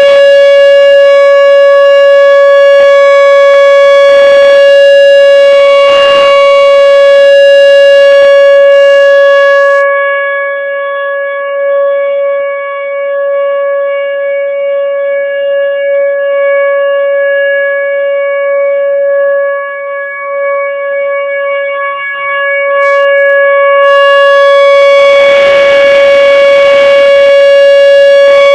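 Whelen Vortex R-4 outdoor warning siren sounding its steady Alert tone: one unwavering pitch with strong overtones, very loud at close range. The sound drops somewhat from about ten seconds in and comes back to full strength a few seconds before the end.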